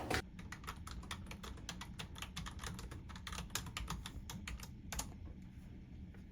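Typing on a computer keyboard: a quick, irregular run of key clicks that stops about five seconds in.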